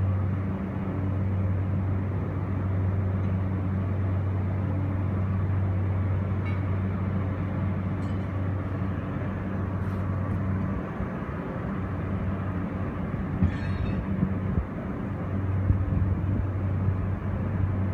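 Steady low machine hum over a broad rush of outdoor background noise. The hum drops away for a few seconds past the middle and comes back near the end, with a few faint clicks.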